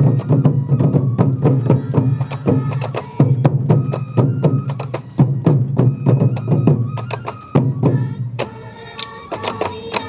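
Sansa odori festival music: taiko drums beaten in a fast, dense rhythm with a bamboo flute playing over them. The drumming stops about eight seconds in, leaving only held tones.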